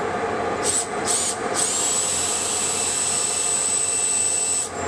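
Cordless drill with a round cutter boring into a sodium silicate sand mold to deepen the pouring cup. Two short bursts of motor whine, then a steady high whine for about three seconds that rises as it spins up and stops near the end.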